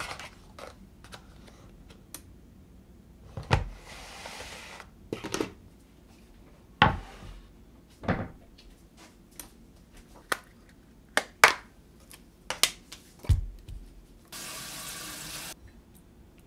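Kitchen counter handling noises: a string of sharp knocks and clacks as a plastic food container and dishes are handled and set down. Near the end a tap runs water for about a second and stops suddenly.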